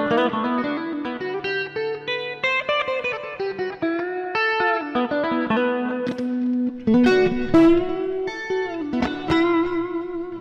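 Solid-body electric guitar played solo: quick runs of single notes and ringing chord shapes, with string bends and vibrato in the second half.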